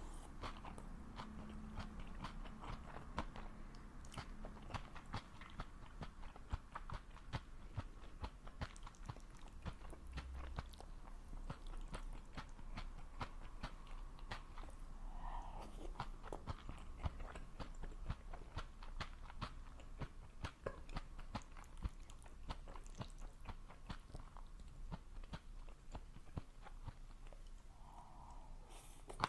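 A person chewing food close to the microphone: a dense run of small, crisp crunches and wet mouth clicks, over and over.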